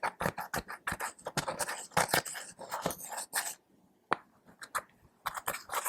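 Clear slime mixed with eyeshadow and glitter, kneaded and stretched by hand: rapid, irregular sticky clicks and crackles. After the middle there is a pause of about a second and a half, broken by a single click, before the crackling picks up again.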